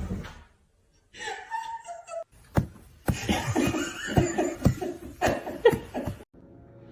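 A person laughing in choppy bursts.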